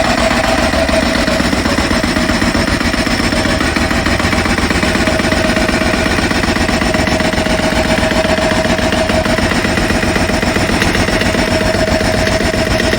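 Pneumatic road breaker (jackhammer) breaking up the ground: continuous, very rapid hammering with a steady tone running through it.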